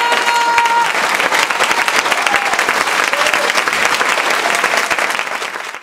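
Audience applauding after a song, with the song's last held note ending about a second in. The applause fades out near the end.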